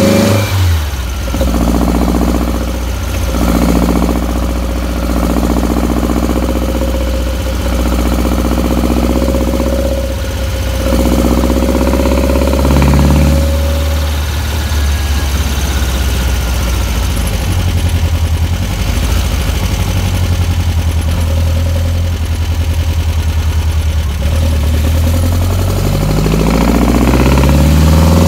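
Air-cooled 2007cc flat-four engine with twin Weber 48 IDA carburettors in a 1973 VW Beetle 1303S, running hard while driving. It drops back about a second in, runs steadily through the middle, and climbs in pitch again near the end as it revs up.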